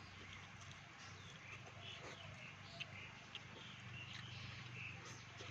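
Faint chewing and mouth smacking with scattered short clicks, and birds chirping in the background.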